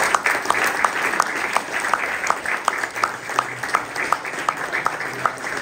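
Small audience applauding, with one nearby person's claps standing out at about three a second.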